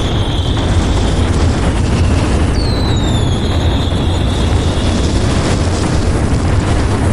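Dense fireworks barrage: many explosions merging into a continuous loud rumble. About three seconds in, a whistling firework rises above it with a falling whistle that levels off and fades over a couple of seconds.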